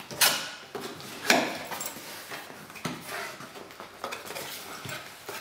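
Cardboard camera box being opened by hand: flaps lifted and scraped, cardboard and paper rustling, with two sharp knocks in the first second and a half.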